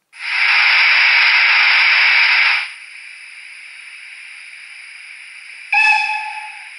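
Steam-locomotive sound from the digital sound decoder of a TT-scale BR 58 model, played through its small loudspeaker. A loud burst of steam hiss lasts about two and a half seconds, then drops to a quieter steady hiss. Near the end comes a short steam-whistle blast that fades away.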